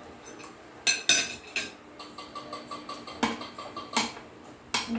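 Metal serving spoons and cutlery clinking against glass serving dishes and plates as food is dished out: about six sharp clinks, some ringing briefly.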